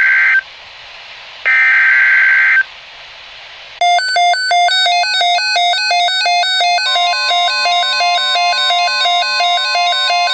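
NOAA Weather Radio emergency alert signal. It opens with the tail of one SAME digital header burst and a second burst of about a second, both harsh data tones. A fast run of stepping electronic beeps follows, and about seven seconds in the steady 1050 Hz weather-radio alert tone joins it.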